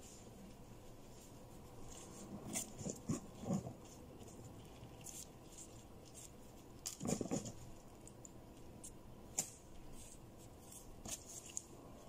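Faint rustling and soft crinkling of plastic-gloved hands spreading rice filling onto grape leaves and rolling them, with a few small knocks against the cutting board, the loudest about seven seconds in.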